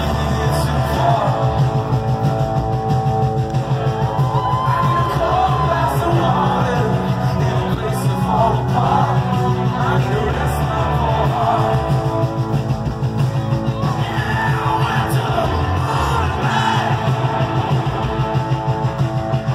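Rock band playing live through a loud PA, heard from the crowd: a male singer singing and shouting over electric guitars, bass guitar and drums.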